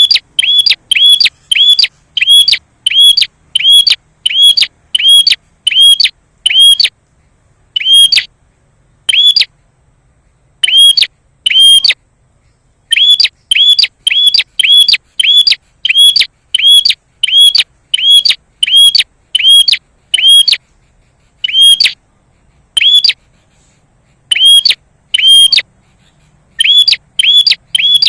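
A prenjak songbird calling: loud, short, sharp chirps, each with a quick upward hook, repeated about twice a second in long runs broken by a few short pauses. It is a recorded lure call (pancingan) meant to provoke other prenjak into answering.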